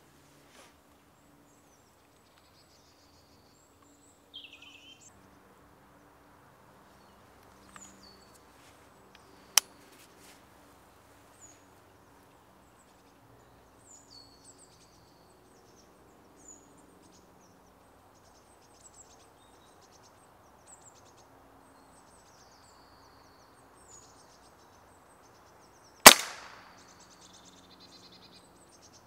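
A single shot from a Walther RM8 pre-charged air rifle near the end: a sharp crack with a short ring after it, the loudest sound. A shorter sharp click comes about ten seconds in. Small birds chirp here and there in the background.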